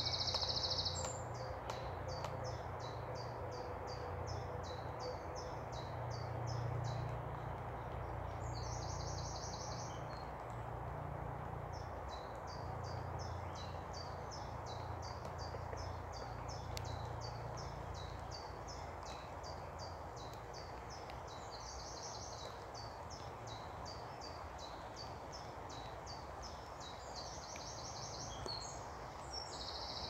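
Songbirds singing in woodland: a long run of quick, high notes, broken several times by a short, dense high trill, over a steady low rumble.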